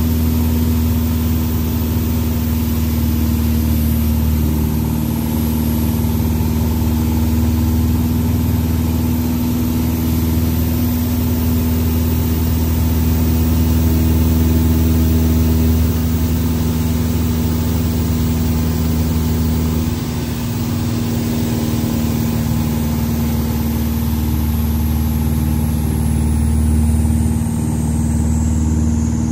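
Van's RV-6A's piston engine and propeller running steadily, heard inside the cockpit. It gets a little louder about halfway through as airspeed builds to 160 knots, dips briefly about two-thirds in, and swells again near the end during the aerobatic manoeuvre.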